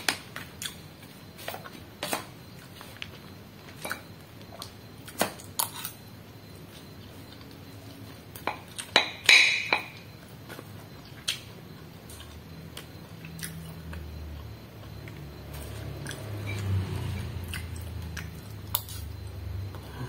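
A metal spoon clicking and scraping as rice and side dishes are scooped from a paper food wrapper. The clicks come irregularly, with a louder scraping rustle about nine seconds in. A low hum builds in the second half.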